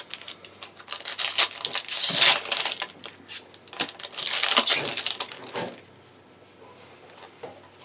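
Foil booster pack wrapper crinkling and crackling as it is handled and opened, in several bursts that die down over the last two seconds.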